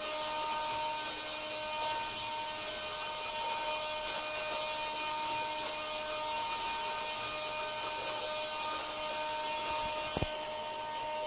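Steady electrical hum with two held tones over a faint hiss; the higher tone drops out for a few seconds midway and returns. A few soft clicks, and a single sharp knock about ten seconds in.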